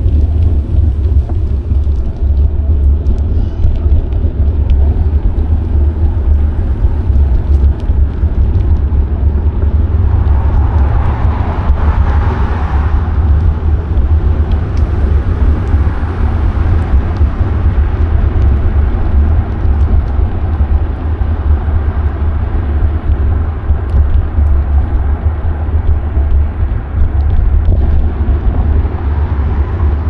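Steady low wind rumble buffeting a bike-mounted action camera's microphone while riding, over a hiss of road noise. A louder hiss swells and fades about a third of the way through.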